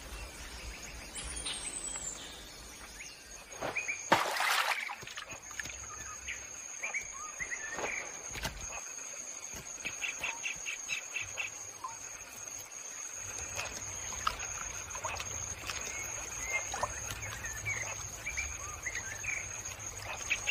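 Tropical forest ambience: a steady high-pitched insect drone with scattered bird chirps, and a rapid pulsed trill about ten seconds in and again at the end. A short, loud burst of noise comes about four seconds in.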